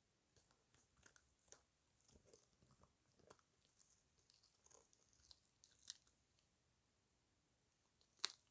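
A puppy chewing and crunching a dried chicken foot: irregular small crunches and clicks of teeth on bone, a lull of about two seconds, then one sharp crack near the end.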